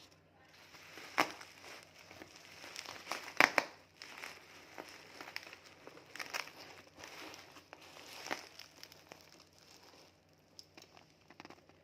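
Parcel packaging crinkling and rustling as it is handled and opened, with a few louder crackles, then quieter rustling near the end.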